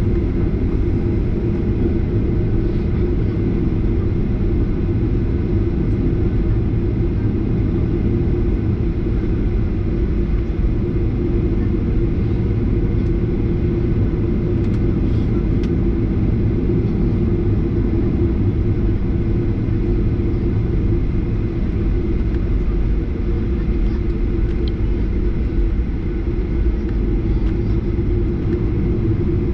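Steady low rumble inside the cabin of a Boeing 737-800 taxiing after landing, its CFM56 engines at taxi idle.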